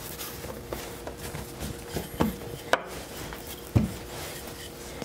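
Wooden rolling pin rolling out pastry dough on a floured wooden board, with several soft thumps and short knocks as the pin and dough press and strike the board; the strongest thump comes a little under four seconds in.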